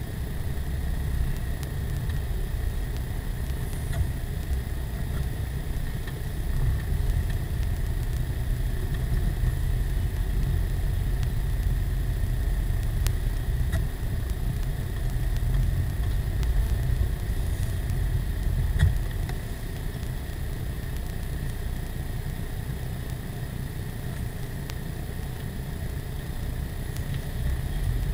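Steady low rumble of a car driving, engine and tyre noise heard from inside the cabin. A brief click about two-thirds of the way through.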